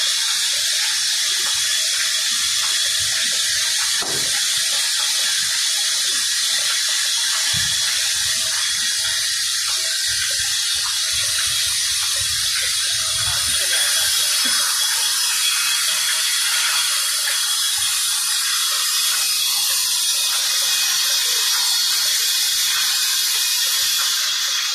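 Large band saw running and cutting a wooden beam lengthwise: a steady, loud, mostly high-pitched rasp with a faint steady whine, and some low knocks from the timber and machine in the middle.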